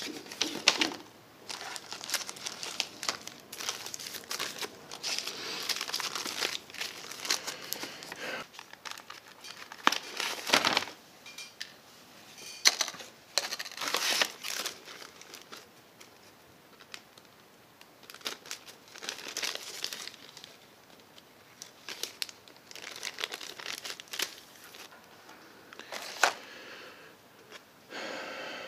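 Plastic packaging around replacement clear lens covers crinkling and rustling as it is handled and opened. It comes and goes in uneven spells, with a few sharp crackles.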